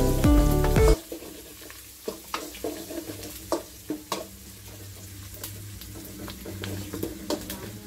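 Background music for about the first second. Then a steel ladle stirs sliced onions and green chillies frying in oil in a metal kadai, with a faint sizzle and scattered clicks and scrapes of the ladle against the pan. This is the tempering stage of a sambar.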